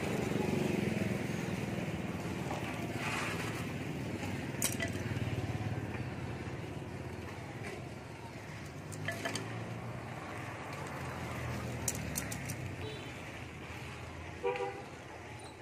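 Copper magnet-wire coil leads on a rewound three-phase motor stator being handled and sorted by hand, with a few sharp light clicks of the wire and tools, over a steady low background rumble.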